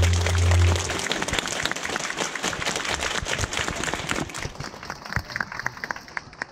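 Audience applause: held music notes stop about a second in, then many people clap densely, thinning to scattered claps near the end.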